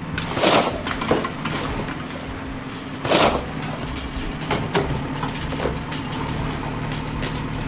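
Cartoon sound effects of a tracked bulldozer's engine running steadily while its blade pushes a pile of rocks and rubble, with loud crunching about half a second in and again around three seconds, and smaller crunches between.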